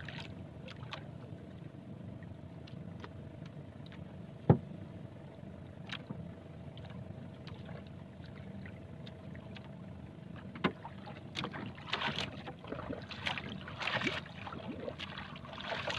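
Small outrigger boat at sea: a steady low hum, with scattered clicks and knocks as fishing line and hooks are handled in the hull. One sharp knock a little before the middle is the loudest sound, and the clicking and rustling grows busier in the last few seconds.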